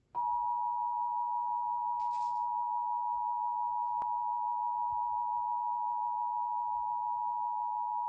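Emergency Alert System attention signal: two steady tones sounded together, 853 and 960 Hz, holding unbroken for about eight seconds before the voice message of a required monthly test.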